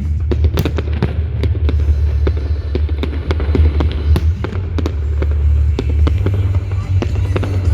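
Firework display: a rapid string of bangs and crackles, several sharp reports a second, over a steady low rumble.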